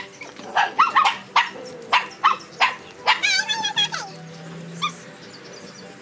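A dog barking repeatedly in short, sharp barks, then a drawn-out wavering call about three seconds in.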